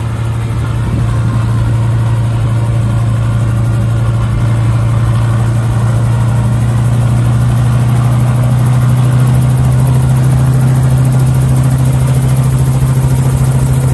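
Ranabot CH-77 light helicopter's engine running on the ground while its rotor begins to turn: a loud, steady low drone that grows slightly louder, with a second, higher note joining about halfway through.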